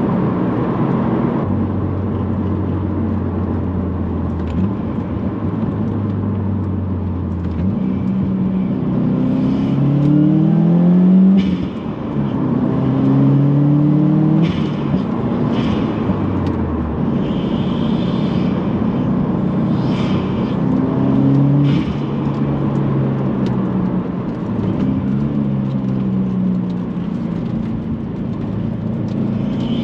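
2018 Subaru WRX's turbocharged 2.0-litre flat-four engine under way, fitted with a GrimmSpeed cast aluminium turbo inlet that makes the intake and turbo sound louder. It holds a steady drone for the first several seconds, then rises in pitch several times, dropping back between rises as it accelerates and shifts.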